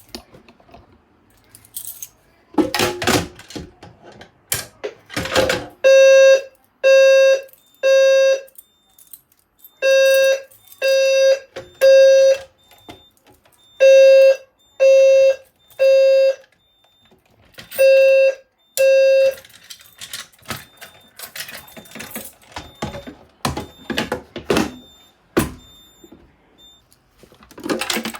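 EST Genesis low-frequency fire alarm horn sounding the temporal-three evacuation pattern: groups of three low-pitched blasts about a second apart, with a pause between groups. It sounds three full groups, and a fourth group stops after two blasts. Before the horn there is clattering and rattling, and after it scattered clicks and knocks.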